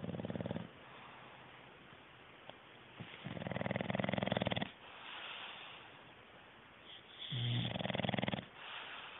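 English bulldog snoring in deep sleep: loud, fluttering, rasping inhalations about every four seconds, each followed by a softer breathy exhale.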